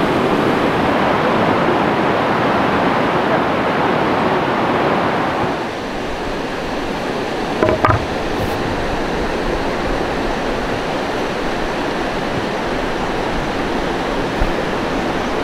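Steady rushing of running water, with a couple of short knocks just under eight seconds in.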